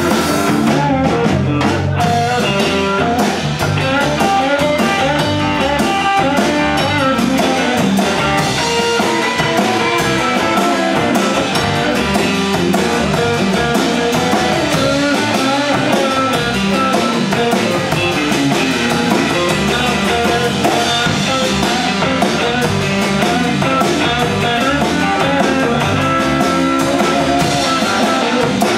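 Live blues band: a red Stratocaster-style electric guitar playing bent, wavering lead lines over a drum kit.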